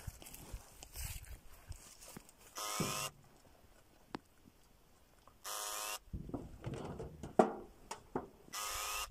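A dog's beeper collar sounding a short electronic beep with a rising sweep three times, about three seconds apart. Faint rustling and knocks come between the beeps.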